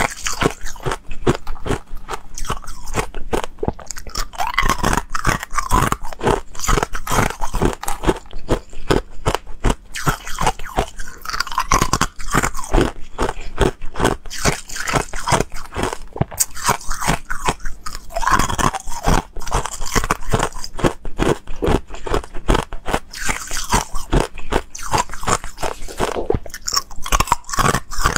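Thin ice cubes being bitten and chewed, a rapid, continuous crisp crunching picked up close by a clip-on microphone.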